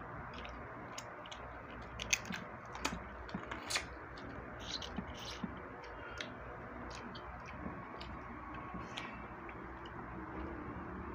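Crab eaten by hand: small, irregular clicks and crackles of shell being cracked and picked apart, and of chewing, most frequent about two to four seconds in, over a steady low room hum.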